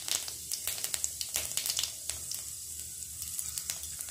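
Crushed cumin seeds sizzling and crackling in smoking-hot mustard oil in a kadhai, the tempering stage of a curry. The pops come thick at first and thin out after about two seconds.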